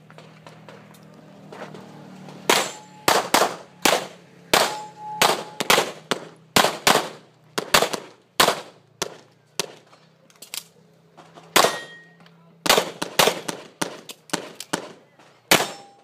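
A semi-automatic pistol fired rapidly in a practical shooting stage course of fire: after a quiet start, dozens of shots come in quick pairs and strings, with short gaps as the shooter moves between positions. Some hits are followed by the brief ring of steel targets.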